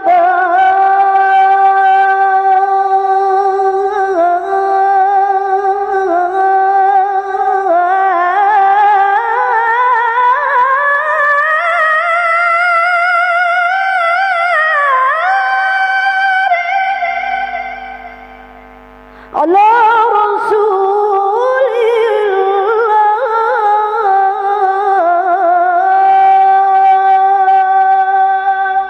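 A woman qori'ah reciting the Quran in the melodic tilawah style into a microphone, in long held, ornamented high notes. One phrase climbs steadily in pitch and then falls away. After a short breath pause about two-thirds of the way through, a new phrase begins.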